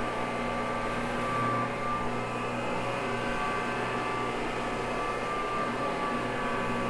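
Carpet-cleaning machine running steadily with a constant hum as its soft brush scrubs solution into a wool rug.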